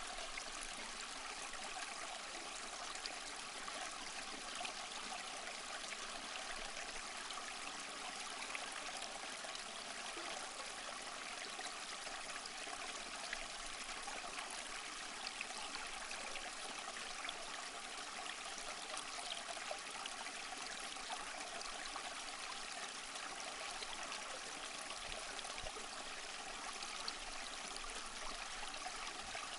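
Small stream flowing: a steady rush of running water with fine splashing, even throughout.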